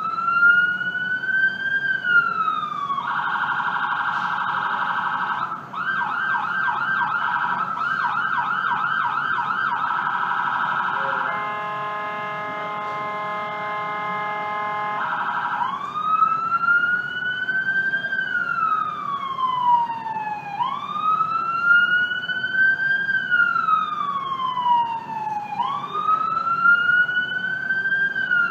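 Ambulance electronic siren cycling through its modes: a slow wail, then a fast yelp from about three seconds in, a steady horn tone from about eleven to fifteen seconds, then the slow wail again, each cycle rising quickly and falling slowly over about five seconds.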